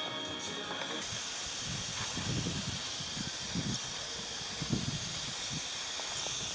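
Gravity-feed paint spray gun hissing steadily as it sprays paint. The hiss starts about a second in.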